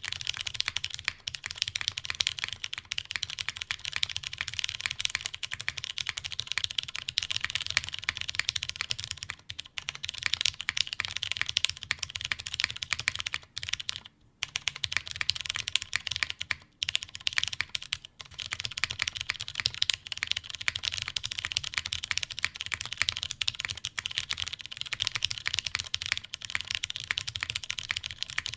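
Fast continuous typing on a custom mechanical keyboard with lubed Cherry MX Brown tactile switches on a polycarbonate plate and GMK keycaps. The keystrokes come in a dense run, with a few short pauses.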